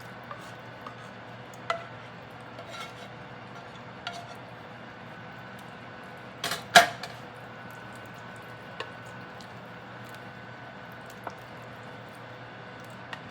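Kitchen utensils and cookware clinking and tapping now and then, with the loudest pair of clinks just past the middle, over a steady faint hum.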